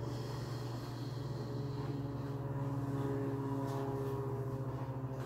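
A steady low mechanical hum with a few held tones above it, one of which shifts pitch slightly about two and a half seconds in.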